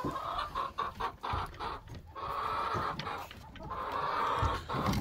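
Hens clucking in a chicken coop, with a few low thuds of movement.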